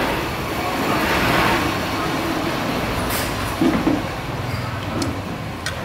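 Road traffic noise, with a vehicle passing close by and swelling about a second in.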